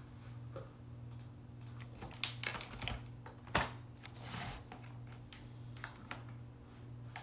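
Irregular sharp clicks and taps, bunched together about two to three and a half seconds in with a louder one near the middle, followed by a short rustle, over a steady low hum.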